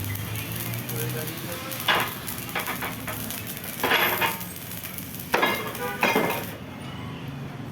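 Welding arc sizzling and crackling, broken by four sharp metallic clanks about a second or two apart. The sizzle stops shortly before the end.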